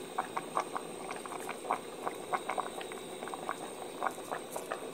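Stock boiling in a cast iron potjie pot: a steady bubbling hiss with many small, irregular pops.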